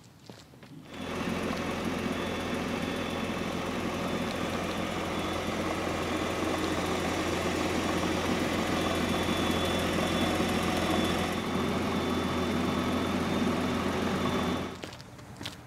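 Car engine idling steadily, cutting in abruptly about a second in and cutting out just before the end.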